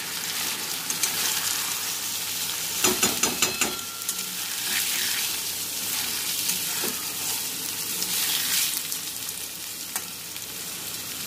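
Soaked and drained rice and diced potatoes sizzling in hot oil in a metal wok while a metal spatula stirs them, scraping and knocking against the pan. A cluster of clicks comes about three seconds in, with a few single knocks later.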